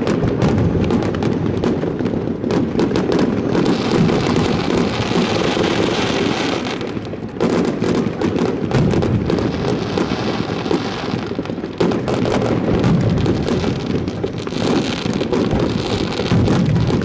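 Fireworks finale: shells launched and bursting in rapid succession, a continuous rumble of booms with many sharp cracks, and stretches of crackling from the bursts.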